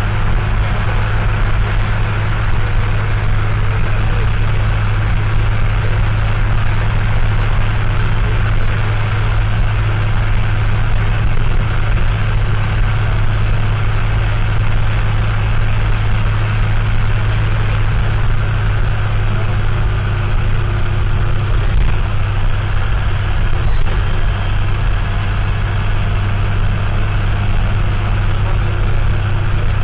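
Bus engine, a Mercedes-Benz OM904LA turbodiesel, running at a steady, unchanging speed, heard from inside the bus. The air-conditioning compressor and its pulley run over the engine noise and partly mask it.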